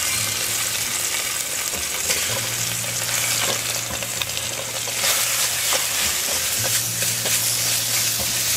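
Seasoned beef chunks sizzling as they fry in hot oil in an aluminium pot: a steady crackling hiss with many small pops. A spoon pushes the meat in and stirs it.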